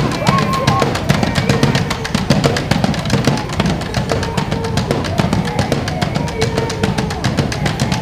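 Batucada protest drum group playing a fast, steady beat on bass drums and snare drums.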